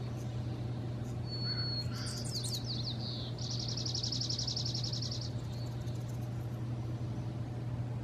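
Songbirds singing at dawn: a thin high whistle, then a quick run of falling notes, then an even, rapid trill lasting about two seconds. A steady low hum runs underneath.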